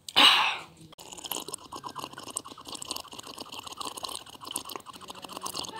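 Orange juice being sipped from a plastic cup held right at the microphone: a steady scratchy crackle of many small clicks in quick succession, after a brief loud rustle at the start.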